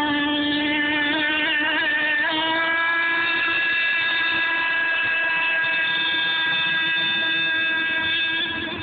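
Small nitro (glow-fuel) engine of a radio-controlled SuperVee boat running at high revs, a high-pitched engine note. The pitch wavers for the first couple of seconds, then holds steady.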